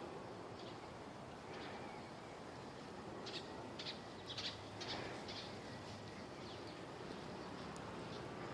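Birds calling: a quick run of about six short, high chirps in the middle, with fainter scattered chirps before and after, over a steady outdoor hiss.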